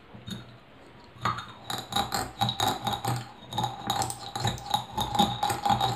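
Mustard seeds being crushed by hand: a fast, irregular run of knocks and crunches starting about a second in.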